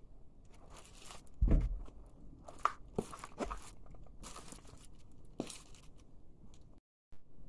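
A sneaker stomping on and crushing a plush toy cat on a hard floor: a heavy thump about a second and a half in, then crunching and crinkling with a few sharp clicks as the foot presses down and shifts.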